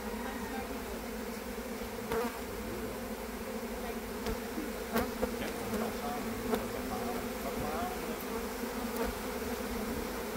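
Swarm of honeybees in flight, thousands of bees making a steady buzzing hum, with a few brief louder buzzes now and then. The sound of a swarming colony that has split off and is searching for a new home.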